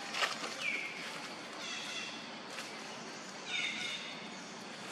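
Newborn macaque giving three short, high-pitched calls, each sliding down in pitch and then holding briefly. A sharp click comes just before the first call.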